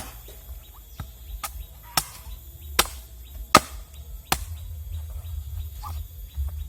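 A blade chopping with repeated sharp strikes, roughly one every three-quarters of a second. The strikes grow fainter and sparser after about four and a half seconds.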